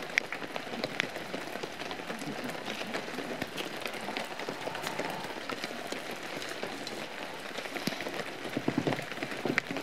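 Steady rain falling, single drops ticking sharply through an even hiss.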